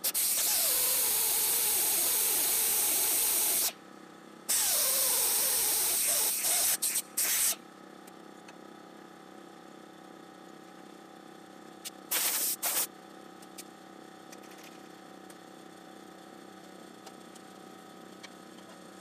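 Pneumatic hand drill drilling holes through a steel bracket. Two runs of loud air hiss of about three seconds each, the motor's pitch dropping as the bit bites in, then a few short trigger blips. A couple of brief bursts of hiss come again about twelve seconds in.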